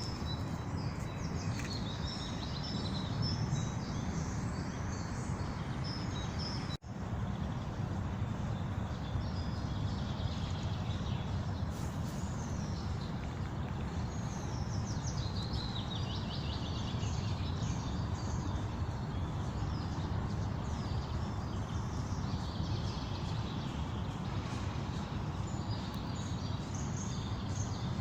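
Several songbirds singing and chirping in quick trills over a steady low background rumble. The sound cuts out for a split second about seven seconds in.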